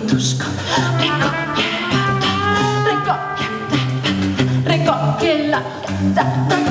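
Live jazz group playing: drum kit with cymbals and drum strikes keeping a busy beat under a repeating low bass line, with voice and trumpet lines above.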